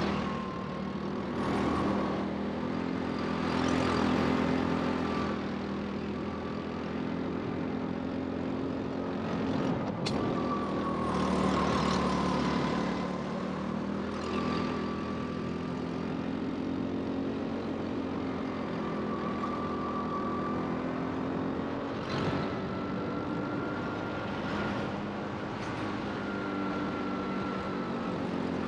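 Rental go-kart running at race pace, its motor note rising and falling with speed, with surges of rushing noise every few seconds.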